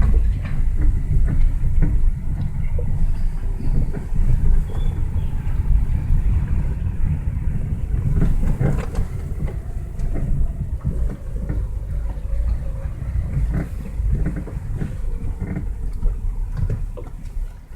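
Lada Vesta SW's front suspension creaking and knocking irregularly over bumps while the car is driven, over a steady low road and tyre rumble.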